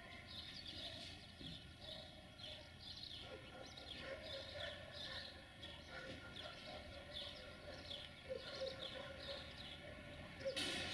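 Birds chirping over and over, short falling calls about twice a second, faint against a low background rumble, with a brief noisy burst just before the end.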